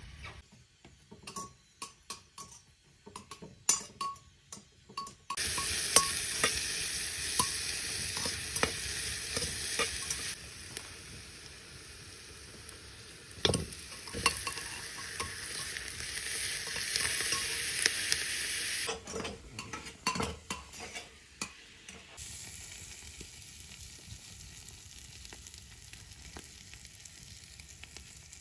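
Onion and minced meat frying in a metal pot on a stove, stirred with a spoon that clicks and scrapes against the pot. A loud sizzle starts abruptly about five seconds in and softens in the last third.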